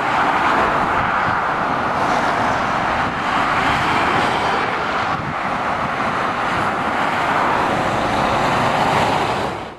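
Steady motorway traffic noise from lorries and cars passing, fading out at the very end.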